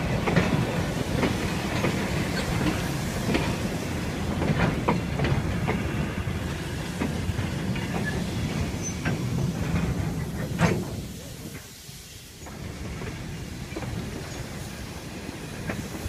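Freight wagons rolling slowly along the track: a low rumble with irregular clicks and clunks from the wheels and couplings. The rolling noise drops away about two-thirds of the way through.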